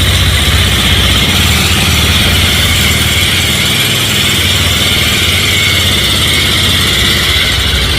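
Bajaj Pulsar 220's single-cylinder engine idling steadily just after starting, with a steady high-pitched noise over the engine note. The noise is very bad and abnormal, and its cause and source are not known.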